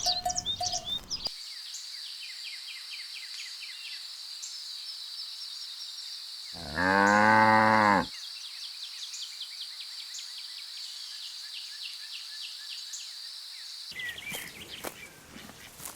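A cow moos once, a single loud call about a second and a half long, midway through. Under it runs a steady high-pitched buzz with quick repeated chirps, with scattered clicks and rustles at the start and near the end.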